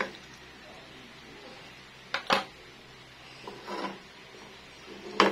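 Metal kitchen tongs clicking and knocking against a non-stick frying pan as a raw bone-in steak is set down in it: a few sharp clacks, a loud pair about two seconds in and another near the end, over a faint steady background.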